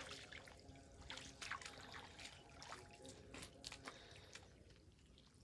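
Faint dripping and trickling of water, with small splashes every half second or so, as a fine-mesh fishing net is drawn through shallow muddy water; the splashes die away in the last second.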